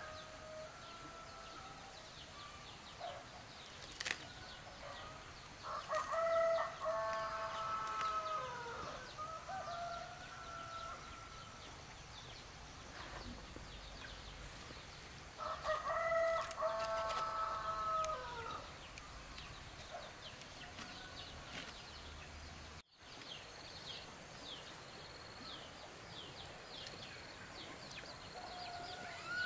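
A rooster crowing twice, each crow about three seconds long, with faint high chirping near the end.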